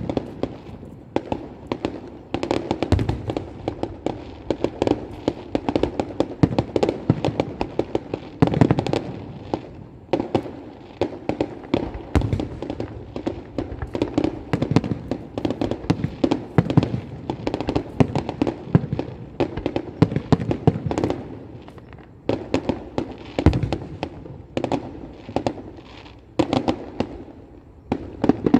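Firecrackers and fireworks going off in a long, dense barrage of rapid sharp bangs, with louder cracks standing out here and there.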